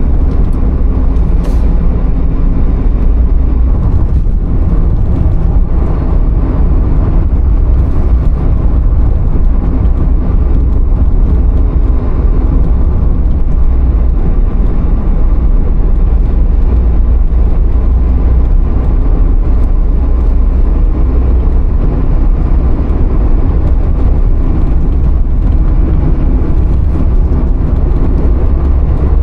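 Steady low rumble of a car in motion, unchanging throughout.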